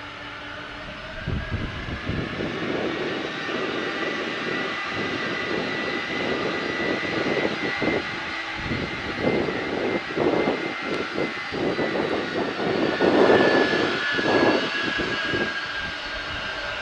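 Boeing 747-400 freighter's four jet engines running at high thrust: a steady high whine over a rough, gusting rumble. The rumble grows sharply louder about a second in and swells again later.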